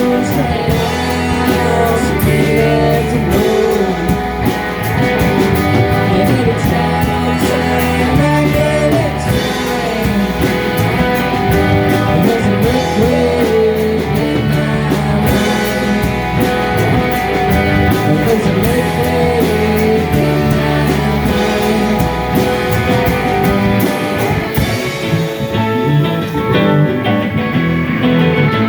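Live rock band playing an instrumental passage, guitars to the fore over drums. The cymbals and high end drop away about 25 seconds in.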